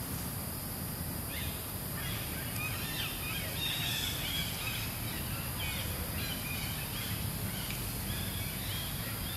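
Small birds chirping in short repeated calls, starting about a second and a half in, over a steady high insect hum and a low outdoor rumble.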